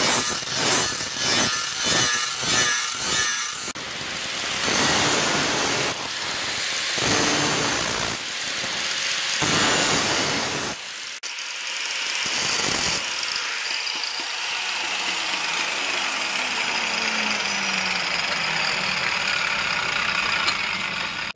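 Angle grinder with a sanding disc grinding a forged steel knife blade, the disc rasping against the steel. At first it goes in quick strokes, about three a second, then runs steadily; in the second half a whine sinks slowly in pitch.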